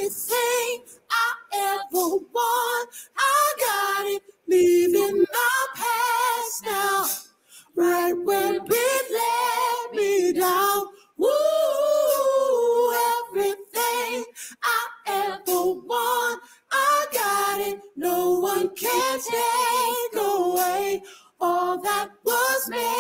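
Male R&B singer's solo voice, unaccompanied, singing high ad-lib phrases with vibrato, separated by short pauses.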